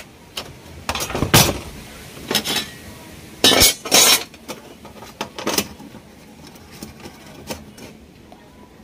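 Hands handling tools and small parts on an opened LED TV's metal chassis and main board: a scattered series of short clicks and clinks. The loudest come about one and a half, three and a half and four seconds in.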